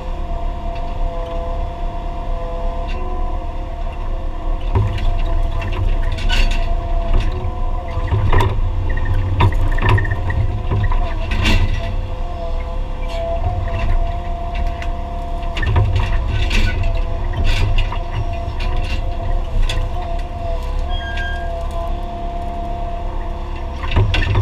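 Mini excavator heard from inside its cab: the engine's steady low drone with the whine of the hydraulics working the boom and grab, and scattered knocks and rattles throughout.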